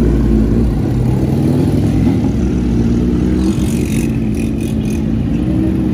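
Several sport motorcycles running and revving as they ride off in a group, their engine notes rising and falling.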